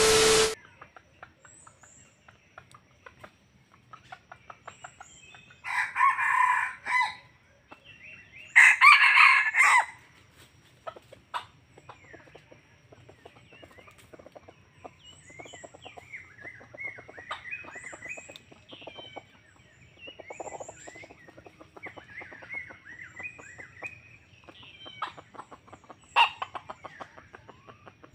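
A red junglefowl rooster crowing twice, about six and nine seconds in, with faint bird chirps and small clicks between. A brief hiss of static with a steady tone opens the first half second.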